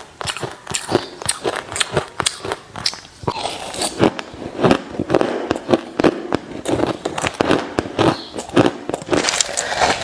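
Crushed pieces of hard ice being bitten and chewed close to the microphone: rapid, irregular crunches, several a second. They come thicker and more grinding from about four seconds in.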